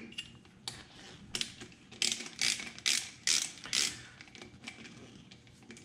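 Hand socket ratchet clicking as plenum bolts are backed out. A few scattered clicks come first, then about five rasping back-strokes, roughly two a second.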